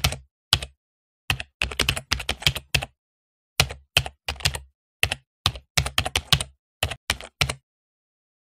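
Computer keyboard typing sound effect: quick runs of key clicks with short pauses between them, stopping about seven and a half seconds in.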